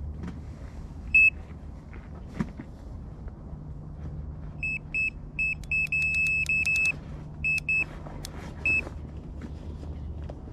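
Electronic carp bite alarm beeping on a rod: a single bleep early on, then a quick flurry of bleeps that runs into a near-continuous tone about six seconds in, followed by a few more bleeps. This is line being pulled off by a taking carp, a run.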